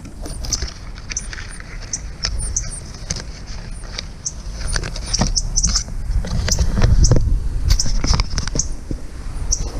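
Small birds chirping: many short, high-pitched chirps, irregular and several a second, over a low steady rumble.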